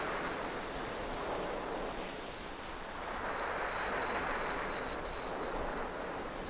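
Surf rushing on a beach, a steady wash of noise that swells and eases slowly.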